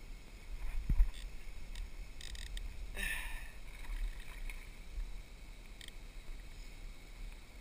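Small boat noises: a knock against the hull about a second in, then a sudden splash about three seconds in as a tarpon boils at the surface near the fly.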